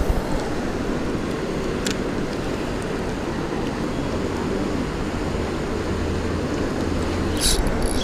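Steady rush of fast-flowing creek water spilling over a low dam, with a short click about two seconds in and a brief crackle near the end.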